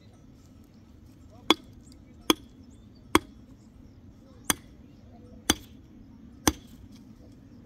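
Six sharp strikes of a hand mattock's metal head into stony earth, unevenly spaced about a second apart, digging and working the soil around the foot of a wooden post being set upright.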